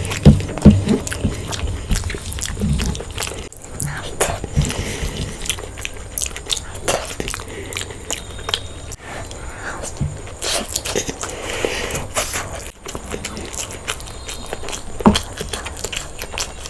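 Close-miked eating: irregular wet chewing, biting and smacking with many small crunchy clicks, as spicy mutton goat head curry and egg biryani are eaten.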